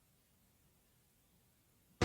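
Near silence: a digital gap between clips.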